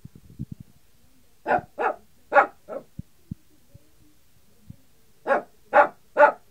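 Small white long-haired dog barking in play: four short barks, a pause of a couple of seconds, then three more.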